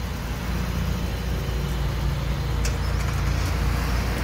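Steady low rumble of a motor vehicle running, with one light click about two and a half seconds in.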